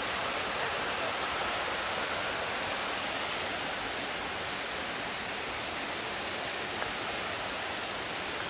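Waterfall rushing: falling water making a steady, even noise.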